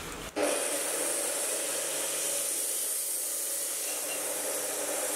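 Steady hiss of a large pot of water at a hard boil, steaming as greens are blanched in it; it starts abruptly just after the beginning.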